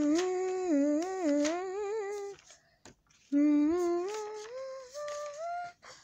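A child humming a wordless, wandering tune in two phrases, with a pause of about a second between them.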